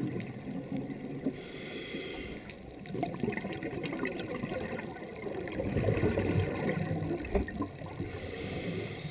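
Underwater sound of scuba diving heard through a dive camera's housing: a muffled rumble with bursts of bubbling from divers' regulator exhaust, louder around two seconds in and again around six seconds.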